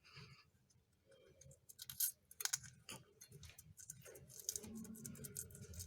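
A scattering of light clicks and taps, the sharpest about two seconds in.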